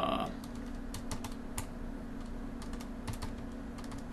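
Keys being pressed in irregular quick clicks, several a second, as a calculation is keyed in, over a steady low hum. A short pitched sound comes right at the start.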